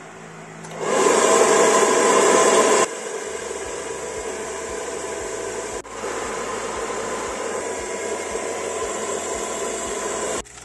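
Handheld electric hair dryer switched on about a second in and blowing steadily, louder for its first two seconds and then at a lower, even level, with a momentary break near the middle; it is switched off just before the end.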